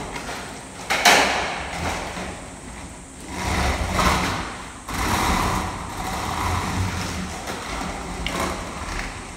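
Machinery running: a steady low hum under uneven swells of rushing noise, with a sharp clatter about a second in.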